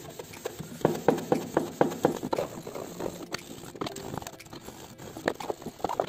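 Wet cloth scrubbed hard back and forth over a Bluetooth speaker's plastic case, a quick run of short rubbing strokes, about three or four a second.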